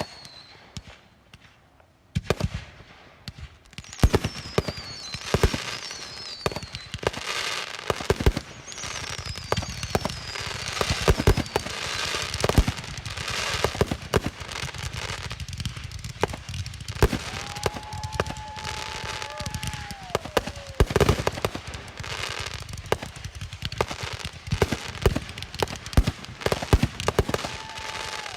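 Consumer fireworks going off in quick succession: sharp bangs and crackling bursts, with several high whistles falling in pitch. About two-thirds of the way through, a held whistling tone drops off.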